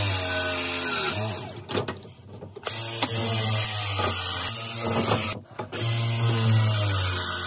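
Battery-powered press tool crimping copper press fittings: its motor runs three times in short strokes of about a second and a half, the pitch dropping as the jaws close on each fitting, with short pauses between.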